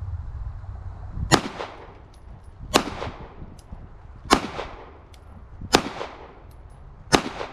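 Glock 43 9mm subcompact pistol firing five single shots, evenly paced about one and a half seconds apart, each crack followed by a short echoing tail.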